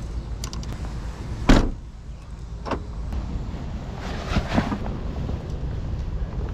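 A car door shutting with one sharp knock about a second and a half in, followed by lighter knocks and rustling as gear is handled, over a steady low rumble.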